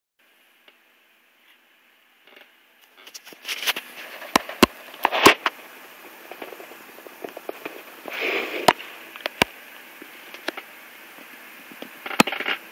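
A cat sniffing close to the microphone: short breathy bursts mixed with sharp clicks, starting about three seconds in.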